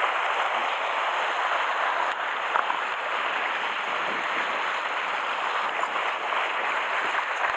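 Small sea waves washing and foaming over shore rocks: a steady hiss of surf.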